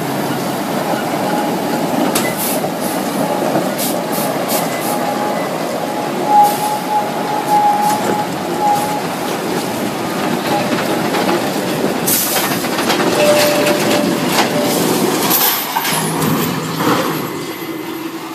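Heavy-haul truck and long multi-axle trailer moving a huge load slowly over rough, rocky ground: steady mechanical running noise and rattle, with scattered knocks. Drawn-out metallic squeals come from the rig, a long one in the first half and a shorter one later.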